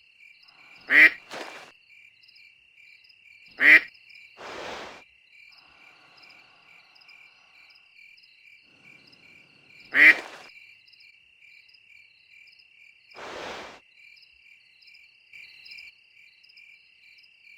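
Night ambience of crickets chirping steadily, with three loud single frog croaks spaced several seconds apart and two softer breathy puffs between them.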